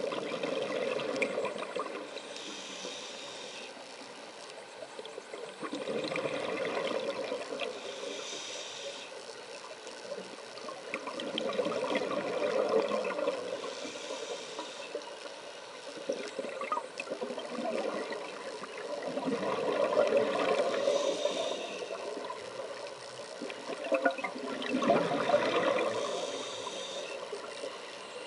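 Scuba diver breathing through a regulator underwater: five exhalations, each a burst of bubbling about every six seconds, with a short hiss of the regulator between breaths.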